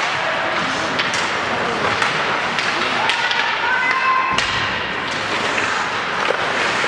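Ice hockey play: sharp clacks and thuds of sticks, puck and boards over a steady murmur of spectators and rink noise, with a voice calling out for about a second, three seconds in.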